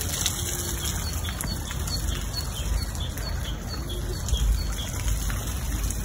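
Outdoor ambience of steadily trickling water with a small bird chirping repeatedly, over a low rumble of wind on the microphone.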